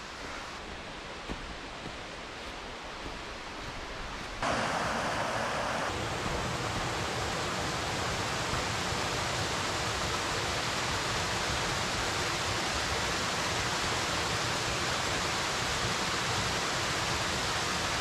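Waterfall rushing: a steady wash of falling water that jumps louder about four seconds in and then holds steady.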